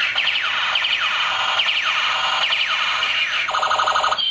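Electronic sound effects from a battery-powered light-up plastic toy gun: a string of falling electronic zaps, each a fast pulsing sweep down in pitch, repeating about every half second, then a denser buzzing rattle near the end.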